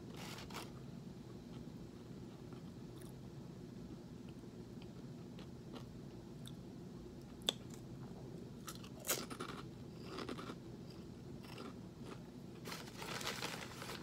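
Quiet crunching and chewing of crispy microwaved pork rinds, with a single sharp click about seven and a half seconds in, a few crisp crunches a couple of seconds later, and a longer crackling stretch near the end.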